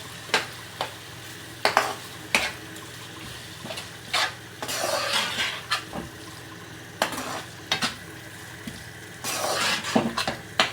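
A spoon stirring a wet chicken-and-onion filling in a frying pan: scattered sharp clinks and longer scrapes of the spoon against the pan, over a steady sizzle as the filling cooks down.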